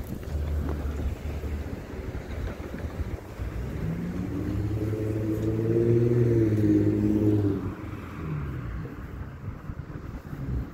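A motor vehicle passes on the street: its engine hum builds about four seconds in, is loudest in the middle and fades away before the end, over a low steady rumble of traffic and wind.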